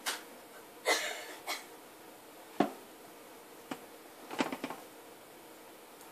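Light knocks and clicks as bars of cold-process soap are cut and handled, about six separate hits with a quick flurry near the end and a short scrape about a second in.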